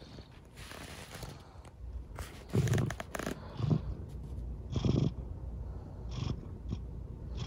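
Domestic cat purring, the purr swelling in pulses about once a second with each breath.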